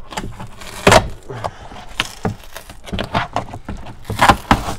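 Adhesive-backed foam thigh pad being peeled off a kayak's plastic thigh platform, the glue tearing away in uneven rips and scrapes, loudest about a second in and near the end.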